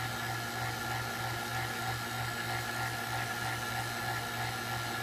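Steady low hum with a constant hiss from a running Farnsworth-Hirsch fusor rig: the vacuum pump running and the 15 kV neon sign transformer buzzing as it drives the plasma discharge.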